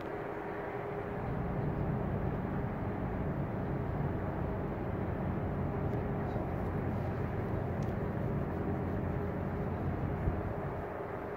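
Steady low rumble of ship engines, with a constant hum, getting a little louder about a second in.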